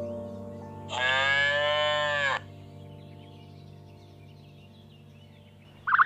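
A cow mooing once: a single drawn-out call of about a second and a half, its pitch rising slightly and falling back.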